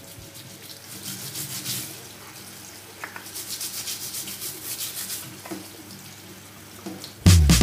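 A brush scrubbing a perforated metal range hood grease filter under a running kitchen tap, in repeated rubbing strokes, to clear built-up cooking oil. Loud music comes in near the end.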